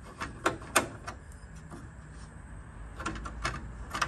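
A steel screwdriver clicking and scraping against the metal clips and screws of a Valiant Charger's dashboard surround as it is pried and undone: a handful of short, sharp, irregular clicks, the loudest about three-quarters of a second in and another cluster around three to four seconds in.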